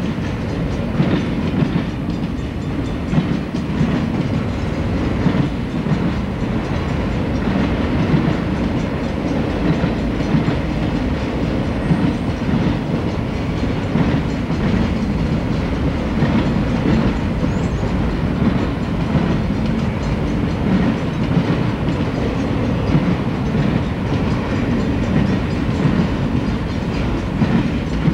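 Freight cars of a passing train rolling by steadily, with a low rumble and the wheels clicking irregularly over the rail joints.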